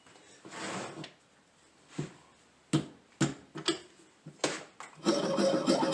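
A run of separate sharp clicks and knocks as workshop tools are handled, then a small machine starts running steadily about five seconds in.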